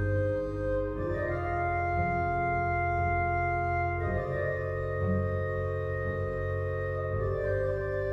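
Background music: slow, sustained chords that change about a second in, about four seconds in and again near the end, over a steady low drone.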